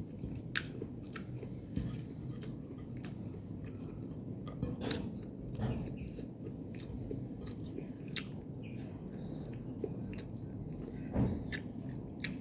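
A person chewing food close to the microphone, with irregular small clicks of the mouth and teeth.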